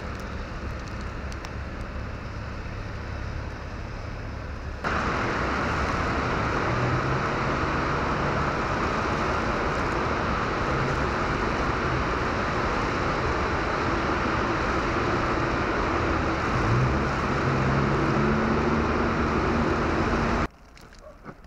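Road traffic: the steady noise of vehicles driving past. It becomes louder about five seconds in, and near the end an engine's pitch rises as a vehicle speeds up.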